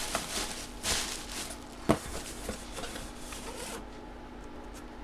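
Rustling and rubbing of items being handled on a table, with one sharp click about two seconds in; the rustling stops about four seconds in.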